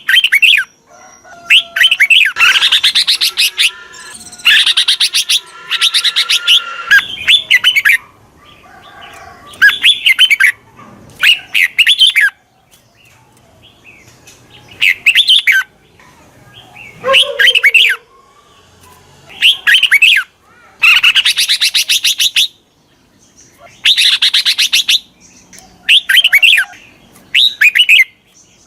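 Red-whiskered bulbul calling: bright chirping phrases mixed with harsh, rapid chattering trills, repeated every couple of seconds with short pauses between.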